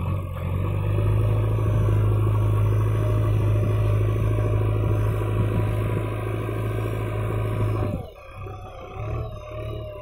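Diesel engine running steadily with a low, even hum, which cuts off sharply about eight seconds in. Faint music follows.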